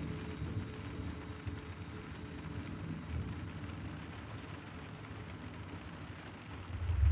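Low, steady rumbling ambience under a faint hiss, with a much louder low rumble swelling in near the end.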